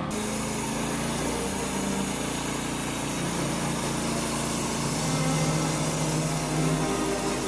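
Wood-Mizer LT15 portable band sawmill running steadily, its engine under way as it saws a pine log.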